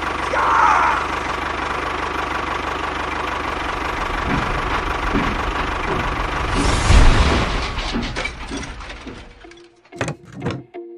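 A mini tractor's motor running steadily. It swells louder about seven seconds in, then dies away, and a few sharp clicks follow near the end.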